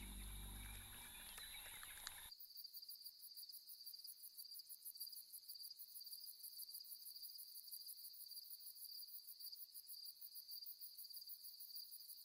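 Faint chorus of crickets trilling steadily at one high pitch with a fast, even pulse. It comes in about two seconds in, as a low music score fades out.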